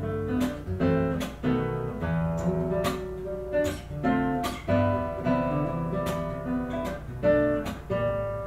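Acoustic guitar music, picked notes and chords struck at a steady pace, each left ringing.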